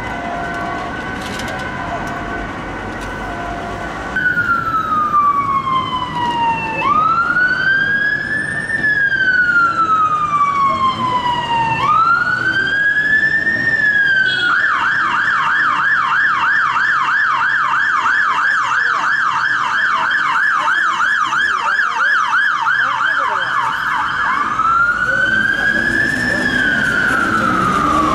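Ambulance siren on an emergency run. After a few seconds of quieter steady tones over traffic, it starts loud in a slow wail, each sweep rising quickly and falling slowly. About halfway through it switches to a fast warble of about four cycles a second, then goes back to the slow wail near the end.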